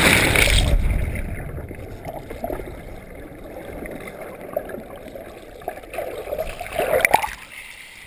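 Sea water heard from an action camera submerged after a jump into the ocean: a loud rush of bubbles from the plunge fades within the first second to muffled underwater gurgling. About seven seconds in, a short burst of splashing as the camera breaks the surface.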